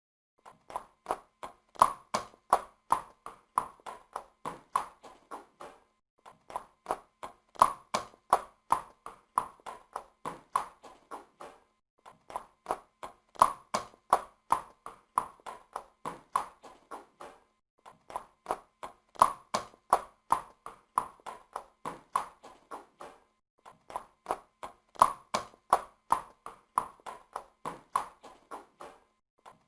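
Horse hooves clip-clopping on a hard surface: sharp hoof clicks about three a second, in a sound-effect loop that repeats every six seconds or so with a short break between runs.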